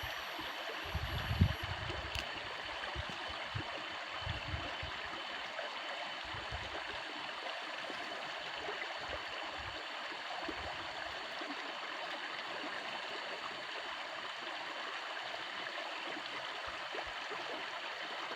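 Steady rush of flowing water, as from a stream or irrigation channel beside a rice paddy, with a few low bumps in the first half, the loudest about a second and a half in.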